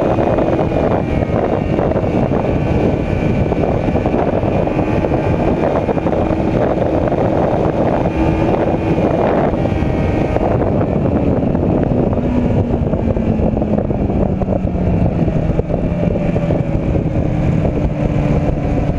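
Sport motorcycle cruising at highway speed, its engine's steady note half-buried under heavy wind buffeting on the microphone. About halfway through, the engine pitch falls steadily and the wind eases as the bike slows down.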